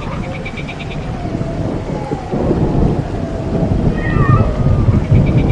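Thunder rumbling, swelling louder about two seconds in, with a cat's yowl about four seconds in.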